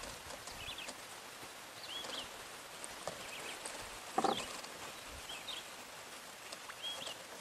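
Small birds chirping in short, high phrases that recur every second or so over a faint steady hiss, with one brief louder sound about four seconds in.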